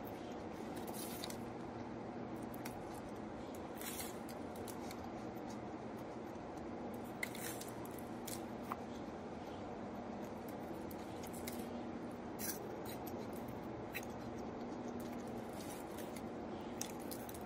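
Flaky croissant crust crunching and crackling as it is torn apart and bitten, a short crisp crunch every second or two, over a low steady background hum.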